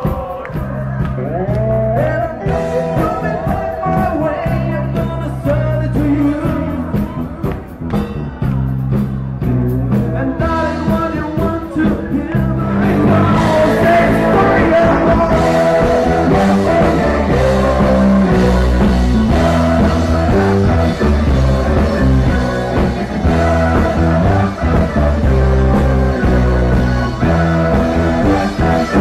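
Rock band playing with a singer, bass guitar and drums; the music turns fuller and louder about thirteen seconds in.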